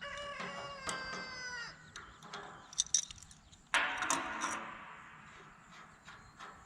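A rooster crowing once, one long call that falls in pitch at its end. A few sharp clicks follow, then a sudden rough, hissing-like sound about four seconds in that fades away.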